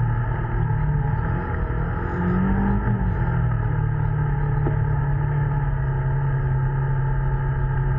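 Polaris ACE 900's twin-cylinder engine running steadily under way. About two seconds in it rises briefly in pitch with more throttle, then settles back.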